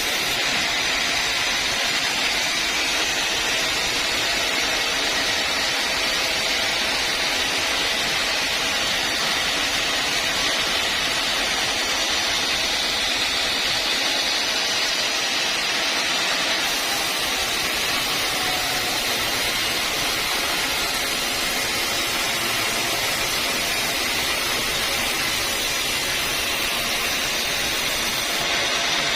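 Sawmill machinery running, a steady, unbroken noise.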